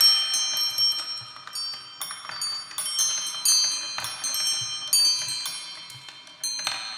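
Marbles on a marble run striking old bicycle bells: about a dozen irregular metallic dings, each ringing on and overlapping the next.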